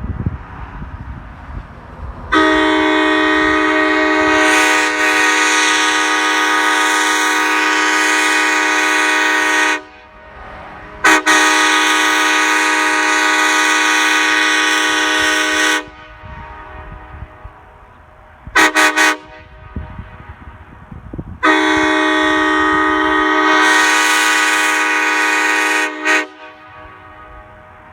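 Nathan Airchime K5LA five-chime train horn, an early-2000s CSX horn, blown on air: a long blast of about seven seconds, a second blast of about five seconds, three quick toots, then a final blast of about five seconds. The five chimes (1, 2, 3A, 4A, 5) sound together as one steady chord.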